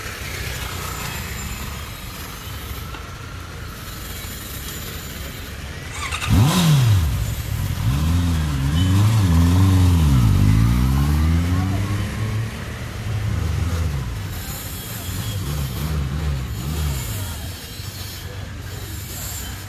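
Motorcycle engines revving, the pitch swooping up and down again and again. The loudest run comes in suddenly about six seconds in and lasts some six seconds, with smaller rev swells after it, over a steady engine hum.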